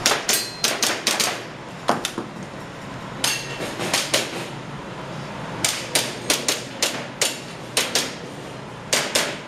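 Airsoft pistol firing in quick pairs and short strings of sharp clacks, with short pauses between strings as the shooter moves between targets.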